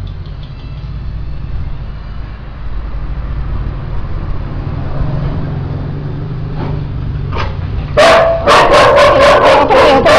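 A dog barking loudly in a quick string of sharp barks and yelps, starting about eight seconds in, after a steady low rumble.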